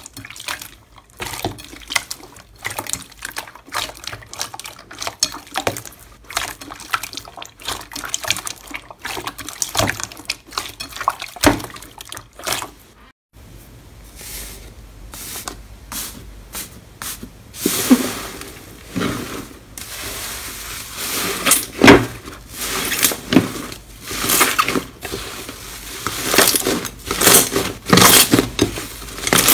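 Hands squishing and kneading slime: wet squelches with many small irregular pops and clicks as air pockets burst. The first part is a clear glitter slime. After a brief break about 13 seconds in, a thick non-sticky 'bread' slime gives louder, sharper pops and crackles.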